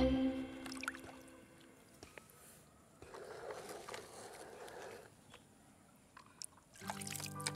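Shallow water squishing and sloshing softly about three seconds in as a plastic toy crane truck is pushed through it, with a few faint plastic clicks. Background children's music fades out at the start and comes back in near the end.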